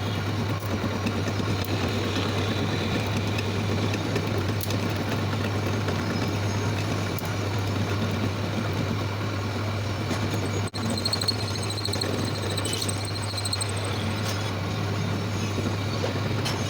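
Manual lathe running: a steady low motor hum with machine noise over it. About eleven seconds in the sound drops out for an instant, and afterwards a faint high pulsing whine joins the hum for a few seconds.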